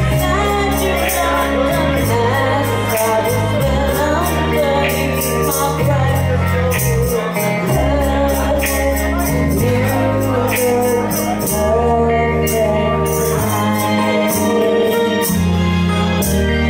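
A woman singing a slow song into a microphone over a karaoke backing track, with sustained bass notes and a steady ticking beat, through a bar PA.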